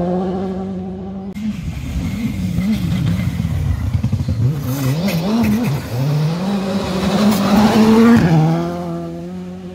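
Rally car engine revving hard through repeated gear changes, its pitch climbing and dropping, with a hiss of gravel from the tyres as it passes close; the loudest moment comes about eight seconds in, at the peak of a long climb in revs. In the first second and the last second and a half a steady droning tone holds instead.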